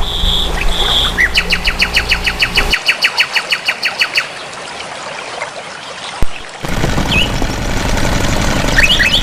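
Bird calls: a few short high notes, then a fast, even trill of about ten notes a second lasting about three seconds, with scattered rising chirps near the end. A single sharp click comes a little past the middle.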